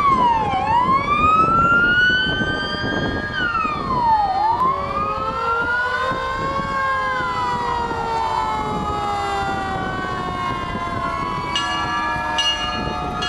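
Several emergency vehicle sirens wailing at once and out of step, their pitches sweeping down and up in overlapping cycles. Near the end come two sharp strikes with a lingering ringing.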